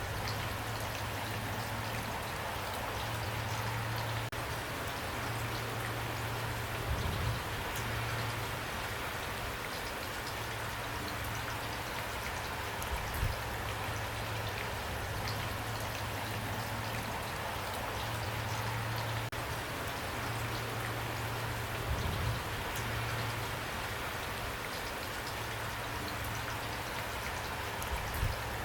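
Steady rain falling, an even hiss with a low steady hum beneath it and a few brief low thumps scattered through.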